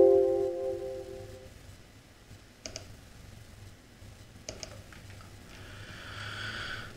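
The fading tail of a Windows alert chime, sounded by a Revit warning that a sketch line is slightly off axis, dying away in the first second and a half. After it come a few sharp computer mouse clicks.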